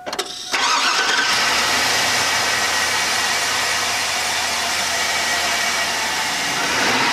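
2002 GMC Yukon's Vortec V8 cranking for about half a second, catching, and settling into a steady idle. It starts straight up with a newly fitted throttle position sensor.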